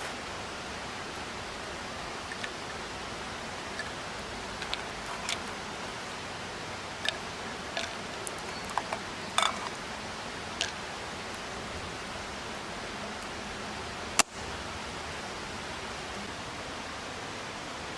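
Steady rushing of a mountain stream, with scattered light clicks and taps and one sharp click about 14 seconds in.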